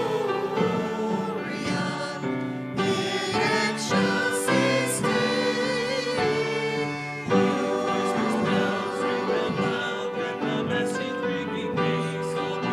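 Sung music: voices holding long, wavering notes over instrumental accompaniment.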